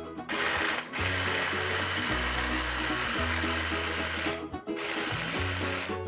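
Electric hand blender with its chopper bowl attachment running, mincing raw turkey meat. It runs in three bursts: a short one, a long one of about three seconds, and a final one of about a second.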